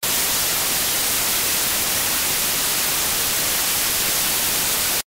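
Steady, loud TV-static hiss used as an intro sound effect. It starts suddenly and cuts off abruptly after about five seconds.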